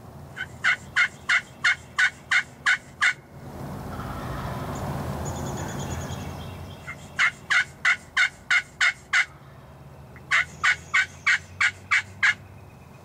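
Turkey yelps on a slate friction call, imitating an excited hen: three runs of eight or nine sharp, evenly spaced yelps at about three a second, with a pause between each run. A soft rushing noise swells and fades between the first and second runs.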